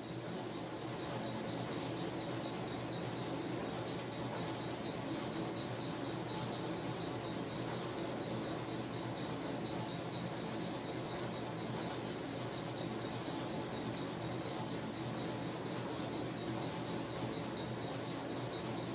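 Steady hiss of compressed air in a Big Blu power hammer's air system, just turned on and being checked for leaks at its quick-connect hose fittings. It swells a little in the first second, then holds even.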